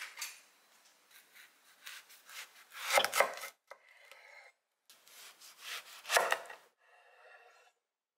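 Kitchen knife slicing through a halved orange-fleshed melon on a bamboo cutting board: short rasping cuts through the netted rind, with two louder knocks as the blade reaches the board, about three and six seconds in.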